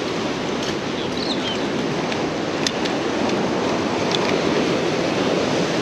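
Steady wind noise on the microphone over the wash of surf, with a few faint clicks.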